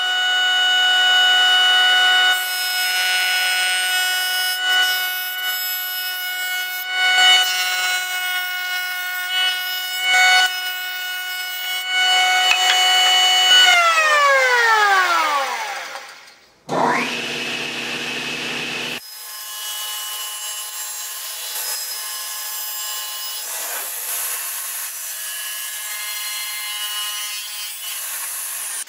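Woodworking jointer running with a steady high whine, with the rougher noise of a board being fed over the cutter head. About 14 seconds in it is switched off and the whine falls in pitch as the cutter head spins down. After a brief low hum, a machine's steady rough running noise follows.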